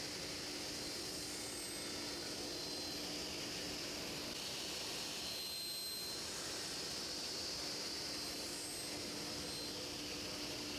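A motor-driven power tool running steadily, a continuous whooshing hiss over a faint even hum.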